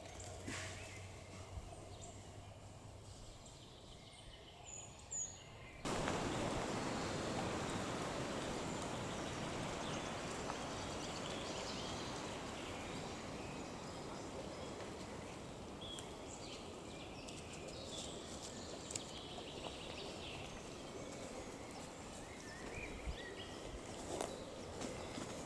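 Outdoor nature ambience with birds calling: a few chirps over quiet background, then about six seconds in a steady rushing noise starts abruptly and carries on, with scattered bird calls over it.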